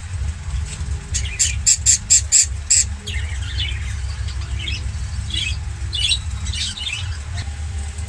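Caged small parrots squawking: a quick run of about eight sharp, shrill calls in the first few seconds, then softer scattered chirping, over a steady low hum.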